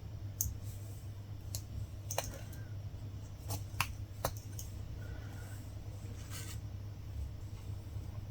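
Latch hook tool working yarn through rug canvas: light, irregular clicks and snips, about eight in all, as the latch snaps shut and the yarn is pulled. A low steady hum runs underneath.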